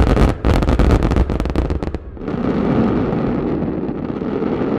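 A hundred 30 cm shakudama firework shells bursting at once, heard from about a kilometre away: a dense volley of sharp booms for about two seconds, then a continuous rolling rumble and crackle.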